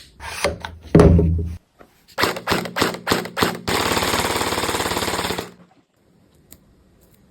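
Toy guns firing: a heavy low thump about a second in, then a string of single shots, then a rapid automatic burst lasting about two seconds that stops abruptly.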